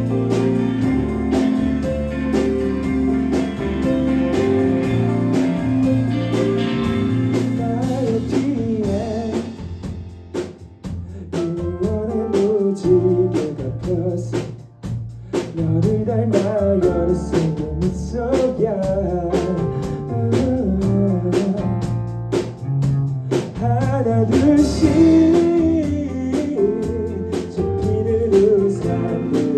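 Live rock band playing electric guitars, bass and drum kit. A lead vocal comes in singing about eight seconds in.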